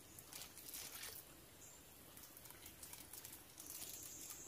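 Faint small splashes and drips of water as a person standing chest-deep in a lake moves his hands and bait in and over the water. A thin, steady high whine comes in a little after three seconds.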